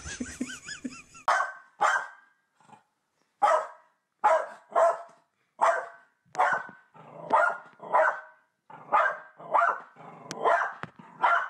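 A dog barking repeatedly, about one bark a second, often two in quick succession.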